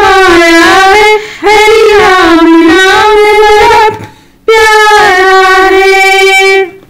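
A woman singing a Hindi devotional bhajan in long, drawn-out held notes. She breaks off for about half a second about four seconds in, then sings one more long line that stops shortly before the end.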